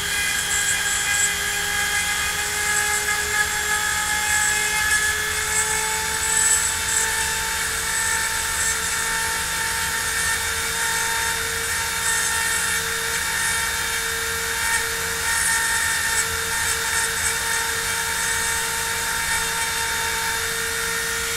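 A small motor running at steady speed with a high whine, its pitch creeping up slightly over the first few seconds.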